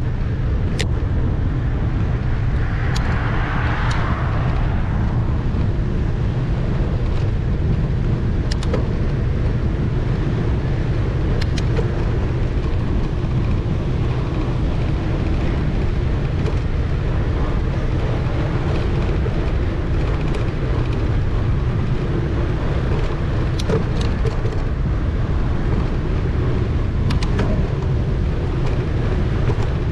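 Wind buffeting the microphone and bicycle tyres rolling on asphalt at speed, a steady low rumble, with a few light clicks and a brief hiss about three seconds in.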